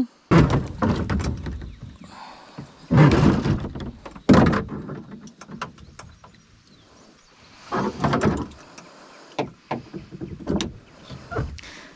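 Irregular knocks, bumps and scrapes of hands and gear moving against a plastic kayak hull, several separate bursts with quieter gaps between.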